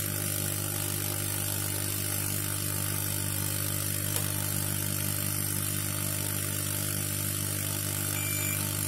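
A steady low machine hum, with one faint click about four seconds in.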